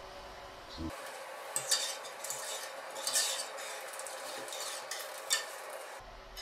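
Metal wire whisk stirring a thick tomato-paste sauce in a stainless steel pot, scraping and clinking against the pot in uneven strokes with a few louder clinks. It starts about a second in.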